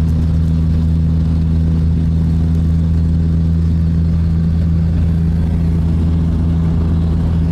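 Car engine droning steadily at a constant speed in third gear, heard from inside the cabin, over an even haze of road and wind noise.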